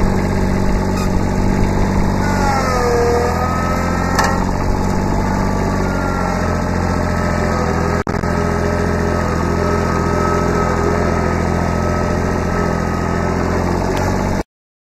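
Kubota B7100 tractor's three-cylinder diesel engine running steadily, with a higher whine that drops in pitch about two to three seconds in and then holds steady. It cuts off abruptly just before the end.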